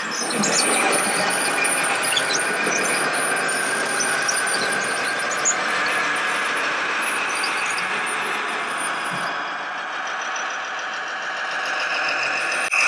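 Scale RC model trucks running with sound modules that play truck engine noise through small speakers, making a steady mechanical din with a high whine. The din eases about ten seconds in and swells again near the end.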